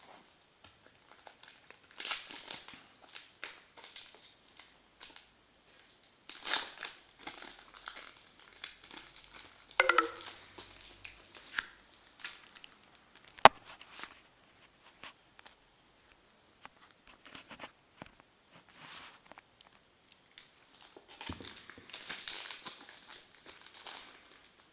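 A 2003 Upper Deck trading-card pack being torn open and its wrapper crinkled and crumpled, in several bursts of rustling, with a single sharp click about halfway through.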